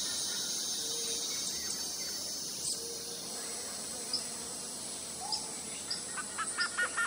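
Steady high buzzing of insects, with short high chirps repeating about every half second from midway. Near the end a bird starts calling, a quick series of repeated notes, about four or five a second.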